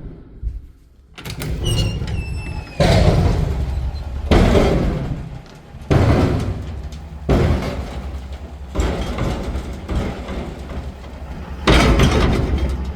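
A series of about seven loud bangs, one every second and a half or so, each trailing off in a long rumbling decay. A short falling whistle sounds just before the second bang.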